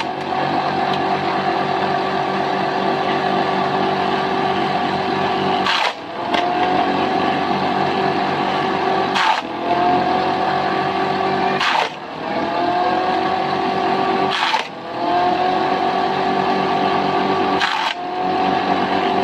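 Wooden mini chaff cutter, driven by a Shimizu water-pump electric motor through a V-belt, running with a steady hum as leafy stalks are fed in. About five times the hum dips briefly and then rises back in pitch as the cutter slows under the load and picks up speed again.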